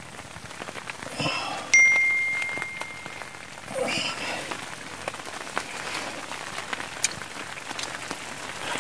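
Metal ladle stirring and scraping in a steel pan on a camping stove, with one sharp ringing clink of ladle on pan about two seconds in. A steady hiss of rain on the tent runs underneath.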